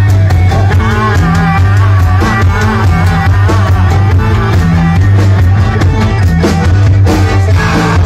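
Live folk-rock band playing loud: accordion, electric bass guitar, electric guitar and drum kit, with a steady drum beat and a deep, repeating bass line.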